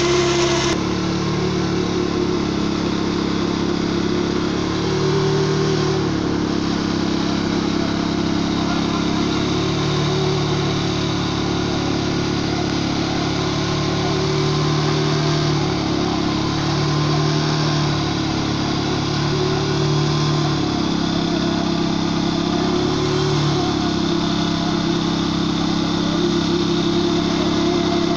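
A machine's engine running steadily, its speed stepping up and down every few seconds with short glides in pitch between the levels.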